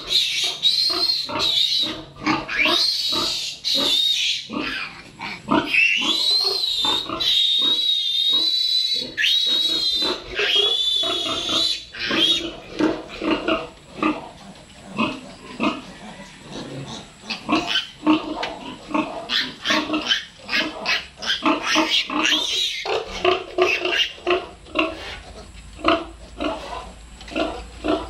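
A newborn piglet squealing shrilly while held by hand, long high wavering squeals for about the first twelve seconds, then a run of short, quick grunts and squeaks.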